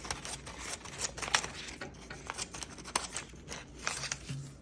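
Small scissors of a Leatherman Arc multitool snipping open and shut, a run of quick, irregular light clicks.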